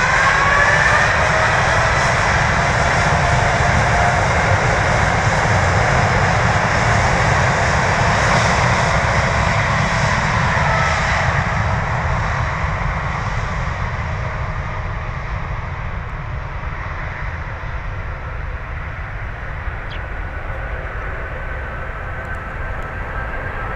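Rolls-Royce Trent 1000 turbofans of a Boeing 787-8 at takeoff power: loud, steady jet noise with a few gliding whines early on, then fading gradually through the second half as the airliner departs.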